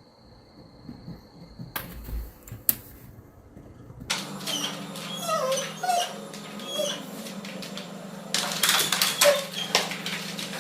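Short, high, wavering whimpering cries from a small pet animal over a low steady hum, starting about four seconds in after a quiet stretch with two sharp clicks.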